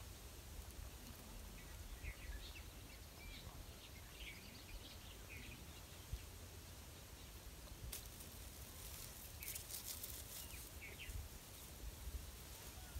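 Faint outdoor ambience: scattered short bird chirps over a steady low rumble, with a few brief rustles in the second half.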